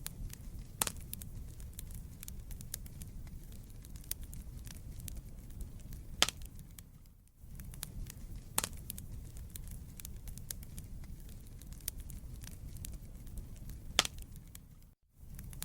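Wood fire crackling in a fireplace: a steady low rumble of burning with scattered sharp pops and snaps. The sound dips briefly almost to silence about seven seconds in and again near the end.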